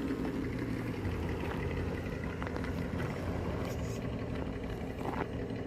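Electric motor and gear drivetrain of a radio-controlled rock crawler whirring steadily as it crawls over the course, with a few light clicks.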